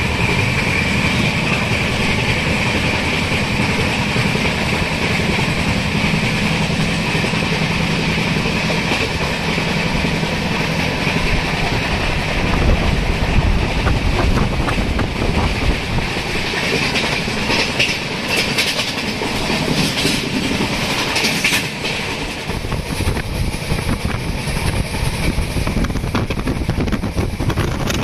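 Express passenger train running along the track: a steady rumble of wheels on rails with clickety-clack over the rail joints, and a run of sharper clicks a little past halfway through.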